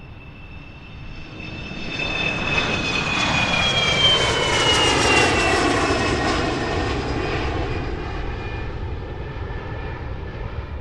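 An airplane passing overhead, used as the 'annoying sound': engine noise that swells to a peak about four to five seconds in, its whine dropping in pitch as it goes by, then slowly fades.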